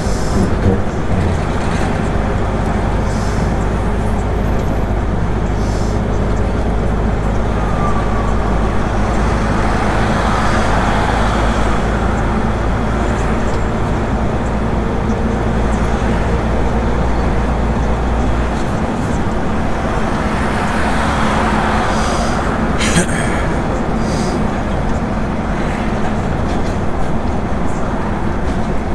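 Inside the cab of a MAN TGX semi-truck under way with an empty container chassis: steady diesel engine drone and road noise. The deep engine note drops away about two-thirds of the way through, and there is a brief knock a few seconds later.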